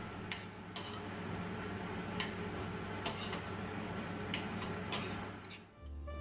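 A steady low hum with light clicks and taps scattered through it, about nine in all. The hum drops away near the end as music begins.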